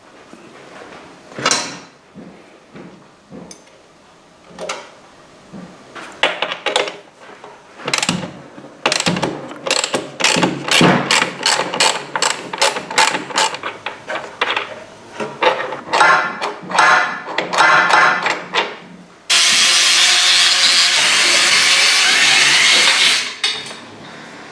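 Hand ratchet and metal tools working on motorcycle rear suspension parts: a run of quick ratchet clicks and metal knocks. Near the end comes a loud, steady hiss lasting about four seconds that cuts off suddenly.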